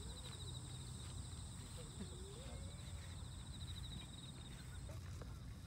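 Quiet outdoor ambience: a steady, high insect trill that stops near the end, over a low steady rumble, with faint distant voices.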